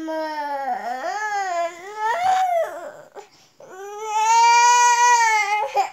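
Toddler crying: a wavering wail, a shorter rising cry, then after a brief pause one long held wail near the end.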